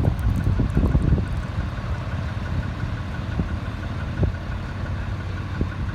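A vehicle engine idling steadily, with gusts of wind on the microphone dying away in the first second or so.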